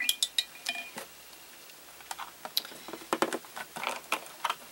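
Irregular light clicks and taps of plastic art supplies being handled, including a white plastic paint palette with lidded wells, with a quieter stretch a second or so in.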